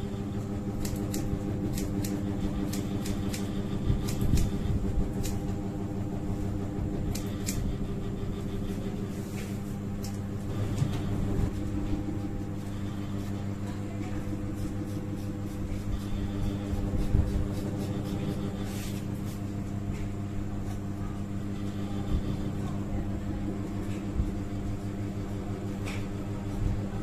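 Barber's scissors snipping hair in sharp clicks, quick and frequent for the first several seconds and sparser after, over a steady mechanical hum.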